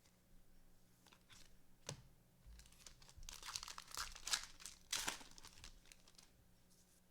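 Plastic wrapper of a trading card pack crinkling and tearing as it is opened, with a few light clicks before it; loudest in a crinkly stretch about three to five seconds in.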